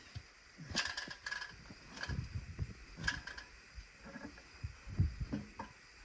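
Irregular clicking and clattering with a few dull low thumps: hand work fixing a bat house to a tree trunk from a ladder.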